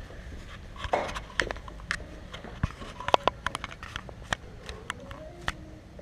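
A scattered run of sharp clicks and light metal clinks, thickest in the middle, as a loaded barbell's plates and collars are handled and adjusted on a rubber gym floor.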